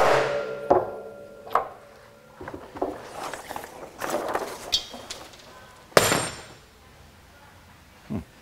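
A mallet strikes the setting die on a No. 9 brass eyelet, setting it into a sewn brass ring from the backside of the sail: one ringing blow right at the start, then two lighter blows. The sailcloth rustles as it is handled, and a single sharp knock sounds about six seconds in.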